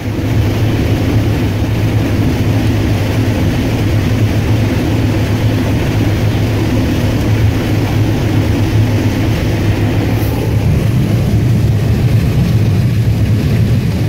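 New Holland TR88 combine running steadily while harvesting corn, heard from inside the cab: an even, loud drone of engine and threshing machinery with a strong deep hum.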